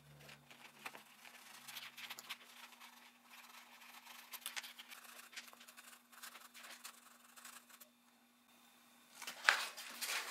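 Rubber hop-up bucking being rubbed on 400-grit sandpaper: faint, irregular scratching strokes that wear material off the rubber to make it flush, stopping about eight seconds in. A brief louder rustle follows near the end.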